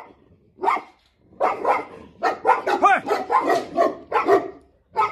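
Tibetan Mastiffs barking: one bark, then a rapid run of about ten deep barks, and another near the end.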